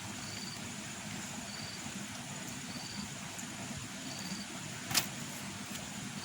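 A person eating and chewing, with a sharp click about five seconds in. A short high chirp repeats about every second and a quarter in the background.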